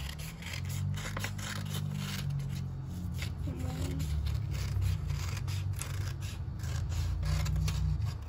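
Scissors snipping through a sheet of crayon-coloured paper in a series of short cuts, over a steady low hum.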